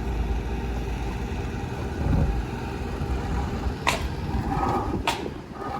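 Diesel engine of a towable air compressor running steadily. Two sharp clicks come about four and five seconds in.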